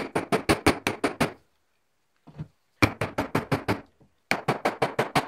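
Rapid runs of sharp knocks, about seven a second, in three bursts with short pauses, as a file held by its new wooden handle is rapped against the workbench to drive the tang home into the handle.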